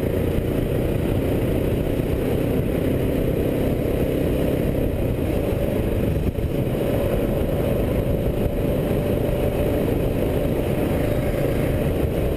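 Kawasaki KLR650's single-cylinder engine running steadily while the motorcycle rides along at an even pace, with a brief dip in level about six seconds in.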